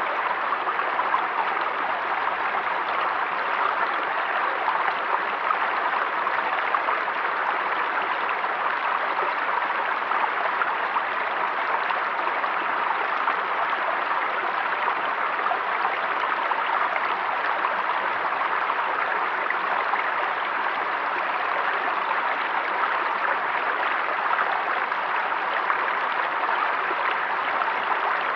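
River or stream water flowing and rushing steadily over rocks.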